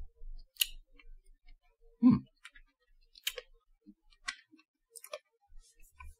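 Mouth noises from sucking a hard candy: scattered small wet clicks and smacks, with a short low hum from the throat about two seconds in.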